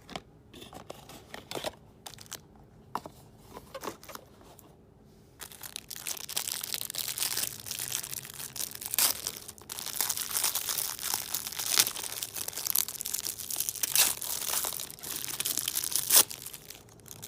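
Packaging being handled: a few light clicks and taps, then from about five seconds in a long stretch of dense crinkling and rustling that stops just before the end.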